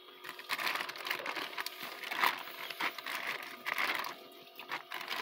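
Wet plastic bag crinkling and rustling under a hand, in irregular crackles.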